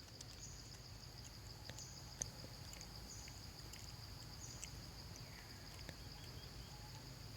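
Insects chirring steadily at a high pitch over a low rumble, with a few faint clicks scattered through.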